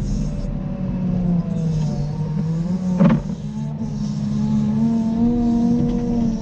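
Caterpillar 926M wheel loader's diesel engine running under load while plowing. The engine pitch dips briefly, then rises again, with one sharp knock about three seconds in.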